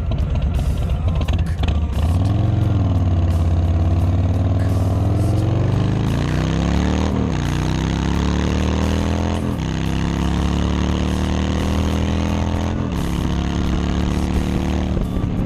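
2018 Harley-Davidson Street Bob's Milwaukee-Eight V-twin running under way and shifting gears. The engine note climbs, then drops sharply at each of three gear changes, and settles to a steady note near the end.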